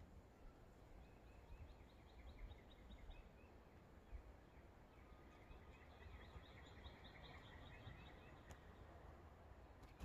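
Faint songbird song in the background: runs of quick, evenly repeated chirps, each run lasting a couple of seconds, with a longer run in the second half, over low steady outdoor background noise.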